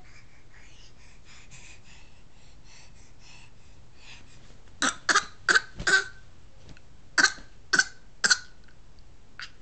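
A baby's laugh that sounds like coughing: short, sharp, cough-like bursts, four in quick succession about halfway through, then three more, each clearly spaced, after faint soft sounds at the start.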